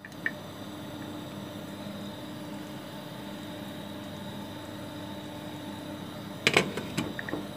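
A steady mechanical hum with a faint high whine runs under a glass pot lid being handled on a cooking pan. There is a light clink just after the start, and a few louder knocks and clinks of the lid against the pan about six and a half seconds in.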